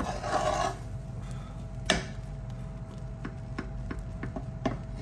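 A metal ladle scraping and tapping against the side and bottom of a metal pot as cooked rice is broken up: scattered light clicks, a brief scrape at the start and a louder knock about two seconds in. A steady low hum runs underneath.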